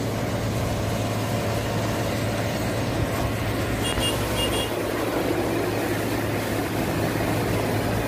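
Truck-mounted microsurfacing machine's engine running steadily with a low hum as it lays slurry. Two short high beeps about four seconds in.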